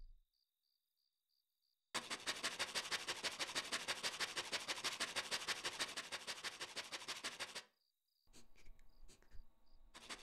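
Hand-cranked flour sifter being worked, giving a fast, even run of rasping clicks, about seven or eight a second. It starts about two seconds in and stops suddenly some five seconds later. Faint cricket chirping sounds behind it.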